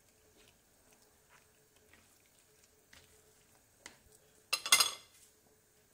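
Slotted spatula stirring chickpeas, eggplant and coconut-milk sauce in a frying pan: faint soft clicks and squelches, then about four and a half seconds in a louder half-second scrape of the spatula against the pan.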